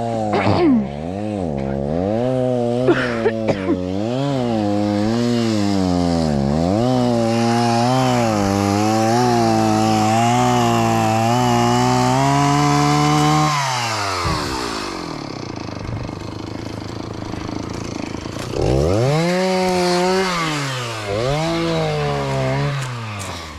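Two-stroke chainsaw cutting through a downed log, its engine pitch repeatedly rising and dipping as the chain bites into the wood. About thirteen seconds in it drops to idle, then revs up and cuts again about five seconds later.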